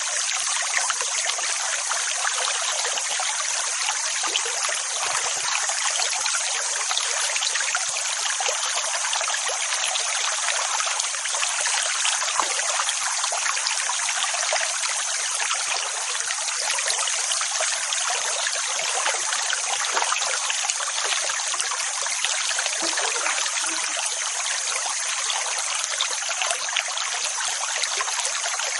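Continuous rushing water, an even hiss with no swells or breaks, thin with no deep rumble.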